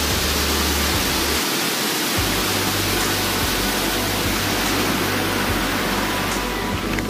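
Waterfall rushing over layered rock ledges: a loud, steady roar of falling water, with a low rumble that drops out briefly about a second and a half in.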